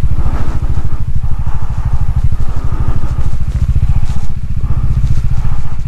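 Motorcycle engine running steadily, with an even, rapid beat of firing pulses.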